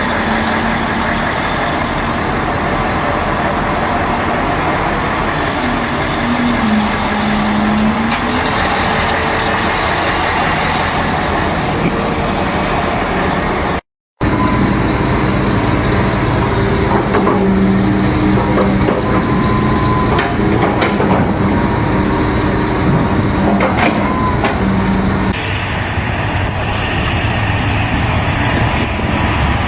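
Heavy machinery engines running steadily and loudly, with low steady tones, across three clips that cut abruptly about 14 and 25 seconds in.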